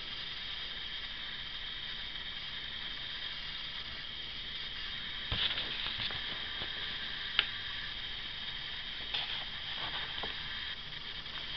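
Steady hiss with a high whine from a handheld camcorder recording a silent scene, broken by a few short handling clicks and knocks about halfway through.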